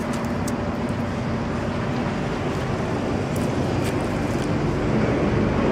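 Steady street traffic noise with an engine hum, swelling a little toward the end.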